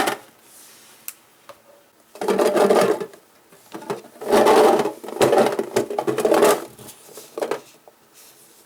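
Small plastic Shopkins figures clattering into a metal storage tin in several bursts, after a sharp click at the start.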